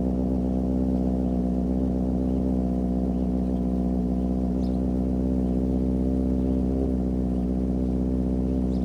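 600cc inline-four sport motorcycle engine idling steadily, a smooth even hum with no revving.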